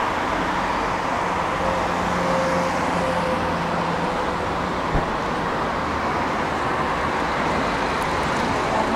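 Steady city street traffic noise, with a vehicle's low hum that fades about four seconds in and a single short knock about five seconds in.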